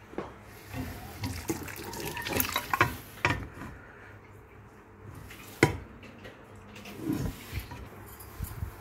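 Kitchen handling of draining, half-cooked rice and steel cookware: a wet, water-like rustle with scattered small clinks, one sharp metal clink about five and a half seconds in, and a few knocks near the end.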